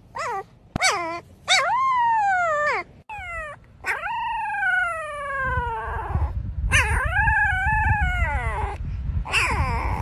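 Golden retriever whining: a string of about seven high cries, several of them long and falling in pitch, with a low rustling rumble under the second half.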